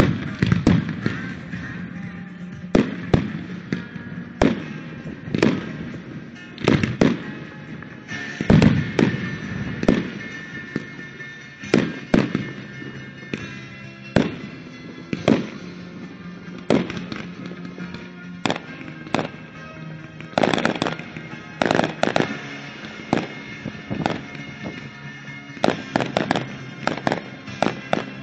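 Aerial firework shells bursting with sharp bangs about once a second, some in quick pairs, over disco music playing for the pyromusical show.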